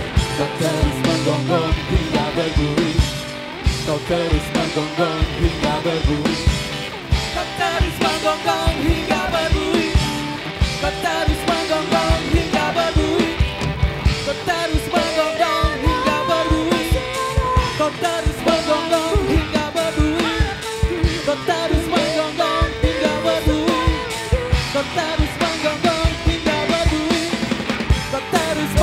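Live band performing a rock-pop song: electric guitars, drum kit and keyboard, with a female and a male singer.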